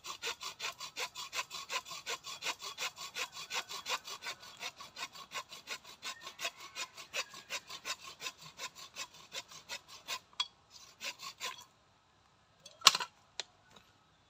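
Small hand saw cutting through the thin trunk of a mai (yellow apricot blossom) tree to take off its top, in quick back-and-forth strokes at about five a second. The sawing stops about three quarters of the way in, and a single sharp knock follows a second or so later.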